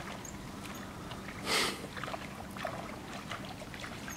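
Spinning reel being cranked as a hooked fish is wound in, giving faint scattered ticking over a low background hiss. A short rushing hiss stands out about a second and a half in.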